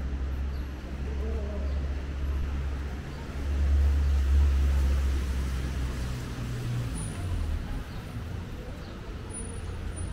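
Street traffic, with a large vehicle's engine rumbling low; it is loudest about four seconds in and eases off after about seven seconds.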